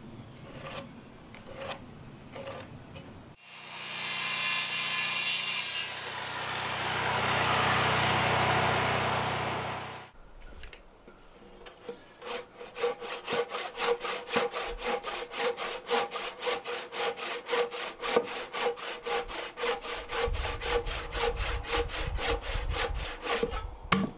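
A power saw, likely the circular saw, runs with a steady whine and cuts into timber for about six seconds. A hand saw then cuts across a large squared wooden beam in fast, even strokes, about four a second, ending in a sharp knock near the end as the offcut comes free.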